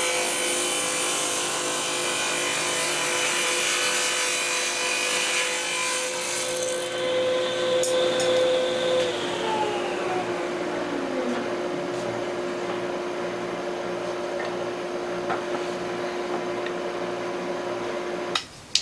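Table saw running and ripping thin strips of wood, with cutting noise over the motor for the first few seconds. About halfway through, one motor tone falls away in a downward glide as it spins down. A second steady machine hum runs on and cuts off suddenly near the end.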